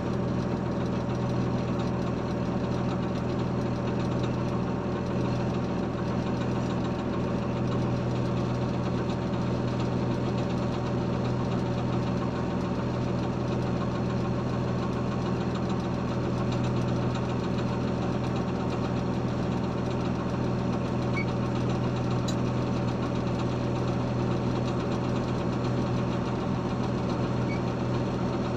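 A heavy diesel engine running steadily with a low, even hum that does not change speed.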